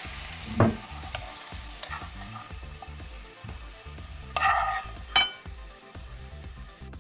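Asparagus sizzling in a nonstick frying pan as the spears are stirred and tipped out, with a few knocks against the pan. Two louder, briefly ringing clinks against a ceramic plate come about four and five seconds in.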